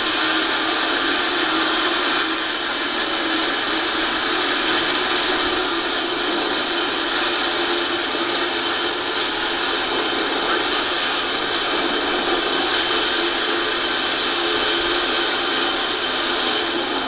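Double-stack container train rolling slowly past: a steady, unbroken noise of wheels on rail, heard thin and without bass as if played back through a TV speaker.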